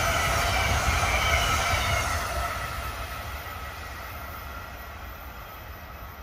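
Amtrak electric passenger train's coaches rolling away on the rails: a steady wheel-on-rail rumble and hiss with a faint ringing note, fading steadily from about two seconds in as the train recedes.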